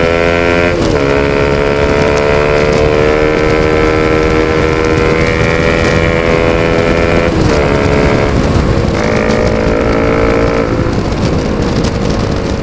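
Bajaj Pulsar RS200's single-cylinder engine through an Akrapovic full-system exhaust with no dB killer, running under way at a steady loud note. The note steps down sharply about a second in and twice more in the second half, then picks up again.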